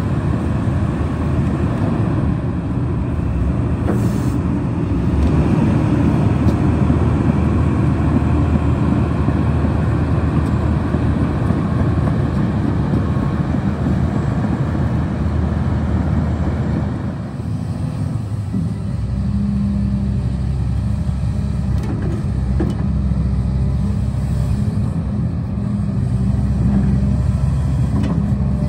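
Hidromek HMK 310 LC crawler excavator's diesel engine running loud under hydraulic load as the machine travels and digs. The sound eases briefly about two-thirds through, then settles into a steadier, lower hum.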